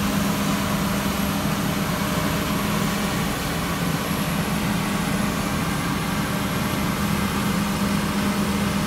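Combine harvester running steadily while working a field, a constant engine drone with a low hum that holds even throughout.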